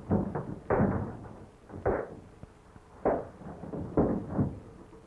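A fistfight on an old film soundtrack: about six sudden thuds and slaps of blows and bodies striking a wall and the floor, spread over four or five seconds.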